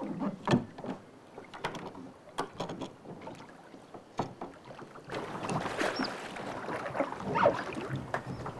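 Small clicks and knocks of a kayak's stern rudder and deck fittings being handled in shallow water. About five seconds in, a steady rush of water noise sets in as the rudder blade goes into the water around the hull.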